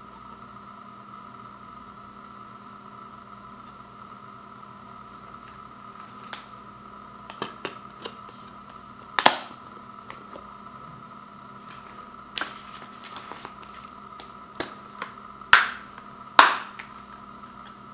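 Plastic Blu-ray case clicking and snapping as discs are pressed onto the hubs and the case is snapped shut. A few small clicks come first, then a sharp snap about halfway and two loud snaps near the end, over a steady background hum.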